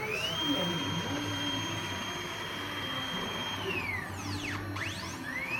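Tyre printer's drive motor whining: the pitch rises quickly, holds steady for about three seconds, falls away, then starts to rise again near the end as the motor speeds up once more.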